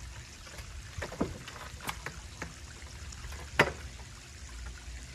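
Arm-wrestling table knocking and creaking as two men pull against each other: a few short clicks and knocks, the loudest about three and a half seconds in, over a steady low rush of outdoor background noise.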